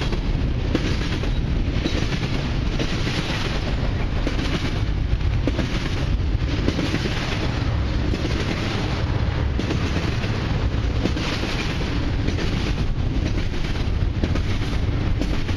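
A long double-stack intermodal freight train's cars and steel wheels rolling past close by. There is a steady heavy rumble, with a rhythmic clatter about once a second as the wheel trucks pass.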